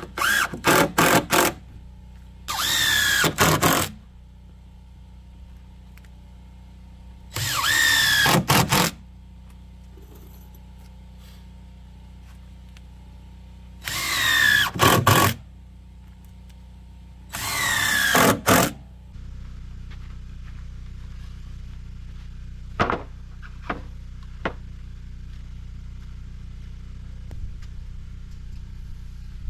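Cordless drill-driver run in five short bursts into the deck's wooden boards, its motor whine dipping in pitch under load. Later there are a few light clicks.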